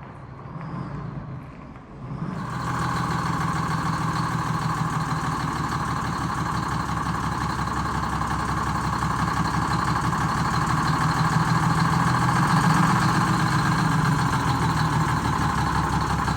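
Detroit Diesel 6-71 inline-six two-stroke diesel engine coming in abruptly about two seconds in, then running steadily with a fast, even pulse.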